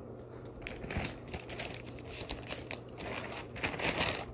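Sheets of paper rustling and crinkling as a handful of notes is handled and leafed through, loudest near the end, with a few soft handling knocks.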